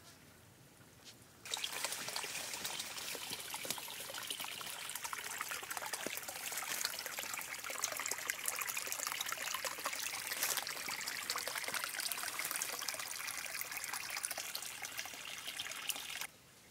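Water of a small stream trickling and splashing close by, a dense crackling hiss. It starts abruptly about a second and a half in and cuts off just before the end.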